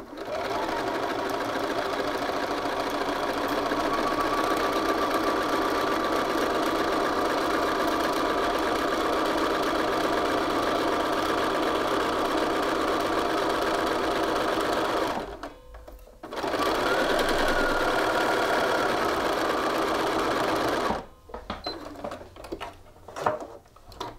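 Bernina sewing machine stitching steadily at speed, basting a collar stand to a shirt collar. It stops about two-thirds of the way through, starts again for about five seconds, then stops, followed by a few light clicks.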